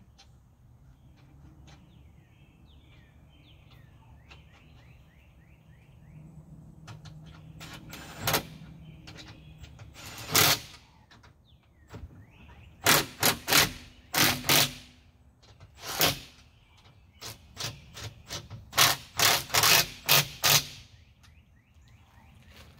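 Cordless power tool running lug nuts onto a car wheel in a series of short, loud bursts, with faint bird chirps before them.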